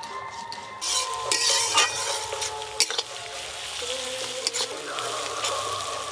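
Chopped onions sizzling in hot mustard oil in an aluminium karahi, stirred with a metal spatula that clicks and scrapes against the pan. The sizzle swells about a second in.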